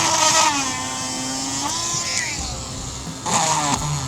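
Small high-speed drill boring into the impact point of a windshield rock chip. Its whine sags in pitch as the bit is pressed into the glass and rises again when pressure eases, with short bursts of grinding near the start and about three and a half seconds in.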